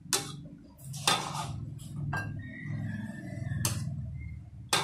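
Metal ladle clinking against an aluminium pot as liquid agar jelly mixture is scooped and poured, about five sharp knocks roughly a second apart, over a low hum.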